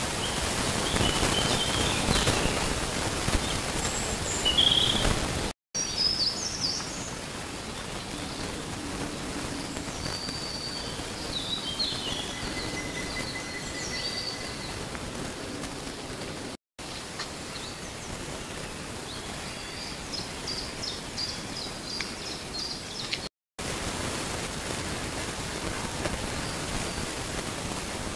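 Outdoor marsh ambience: a steady hiss with short, high bird calls now and then. The hiss is louder for the first five seconds or so, and the sound drops out abruptly three times where the film cuts.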